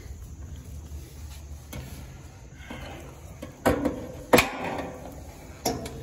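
Sharp metallic knocks and clanks from the sheet-metal casing of an outdoor air-conditioning condensing unit being handled: two close together about halfway through, each ringing briefly, and another near the end.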